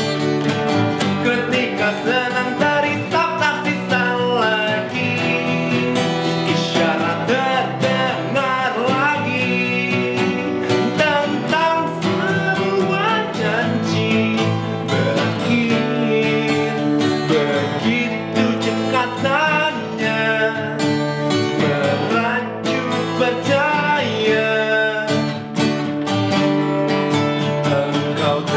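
Two acoustic guitars played together, accompanying a man singing in Indonesian.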